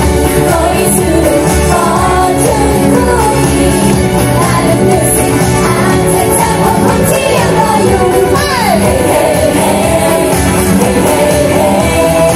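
Loud pop song with singing, playing steadily, from an idol-group stage performance.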